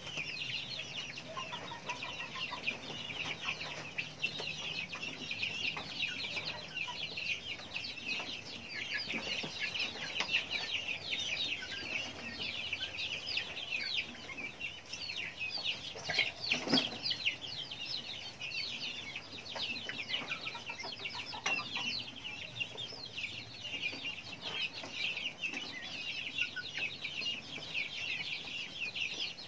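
A pen of chicks peeping constantly, many high chirps overlapping, with one louder sound about halfway through.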